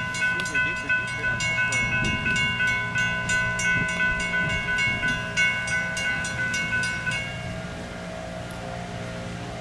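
Railroad grade-crossing bell ringing rapidly, about three strokes a second, over the low rumble of a train; the bell stops about seven seconds in.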